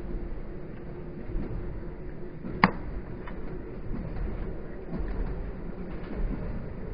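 EN57 electric multiple unit running along the line, heard from inside the carriage: a steady low rumble with a steady hum, and one sharp click about two and a half seconds in.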